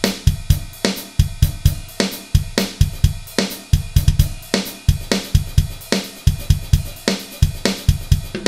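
Background music: a MIDI-sequenced drum kit playing a steady beat of kick, snare and hi-hat, with no other instrument prominent.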